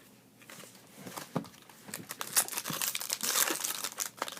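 Foil trading-card pack wrapper crinkling and tearing as it is opened, after a few light clicks at first; the crinkling gets much louder from about halfway in.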